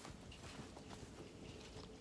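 Faint footsteps and rustling of someone walking over dry grass, with scattered light ticks.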